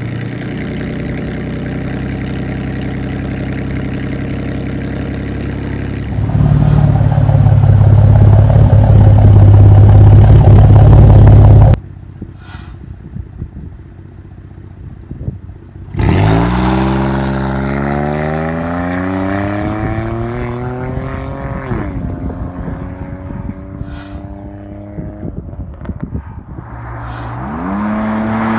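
Straight-piped Pontiac G6 exhaust idling steadily, then held at higher revs for several seconds before cutting off sharply. After a quieter stretch with a few sharp pops, the car accelerates hard: the exhaust note climbs, drops as the automatic transmission upshifts, climbs again and shifts again. It builds once more near the end.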